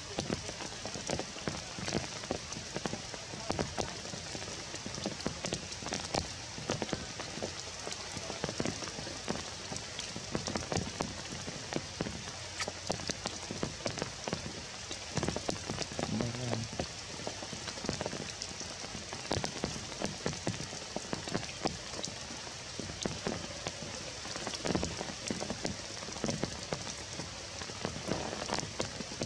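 Steady rain falling on forest foliage, many separate drops heard over a constant hiss.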